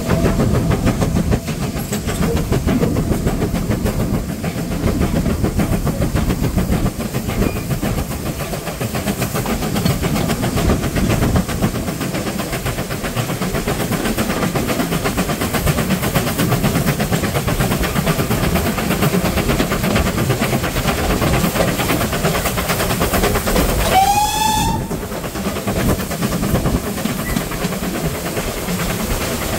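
Steam-hauled passenger train running, heard from an open carriage window: a steady rumble of the coaches and wheels on the track. About 24 seconds in, the locomotive's steam whistle gives one short blast that bends up in pitch.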